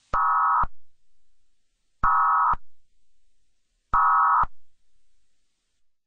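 Emergency Alert System digital data bursts (SAME code): three short buzzing electronic bursts about two seconds apart, each followed by a brief fading echo. Sent three times at the close of a message, they are the end-of-message code that ends the required weekly test.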